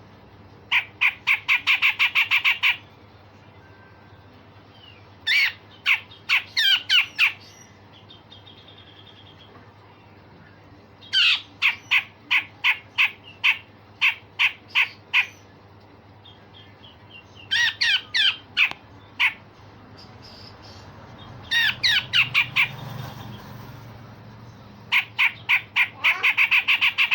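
Cucak jenggot (grey-cheeked bulbul) singing harsh, rapid strings of sharp notes: six bursts of about five or six notes a second, separated by short pauses.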